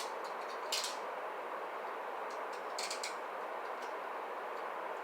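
Steel handcuffs being handled: a sharp metallic click about a second in, then a short run of quick ratchet clicks near the middle, over a steady background hiss.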